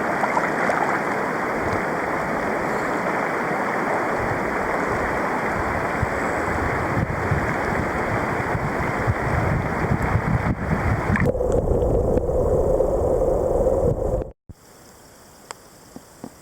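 Mountain stream water rushing steadily. Its sound changes about two-thirds of the way through, then cuts off suddenly near the end, leaving a faint quiet background with a few small clicks.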